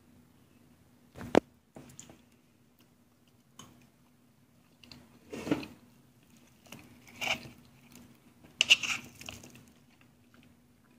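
A steel spoon clinking and scraping on a ceramic plate as it scoops soft semolina sheera. There is one sharp clink about a second in, then a few softer scrapes and knocks.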